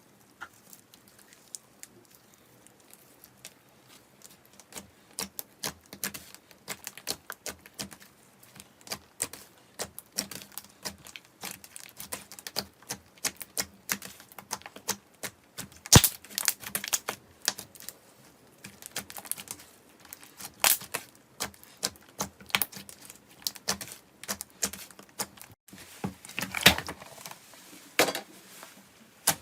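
Slime being squeezed and pressed, giving irregular sharp clicks and pops like crackling air bubbles or crunchy beads. It starts sparse and soon grows into a thick patter, with one louder snap about halfway through.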